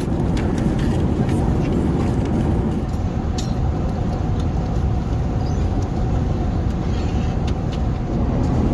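Steady cabin rumble inside an Airbus A380 airliner in cruise: engine and airflow noise, with a few faint clicks.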